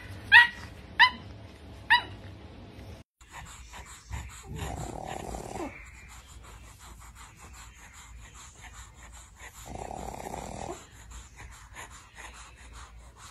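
A pug puppy gives three short high yips in the first two seconds. Then a pug asleep on its back snores, two long snores about five seconds apart.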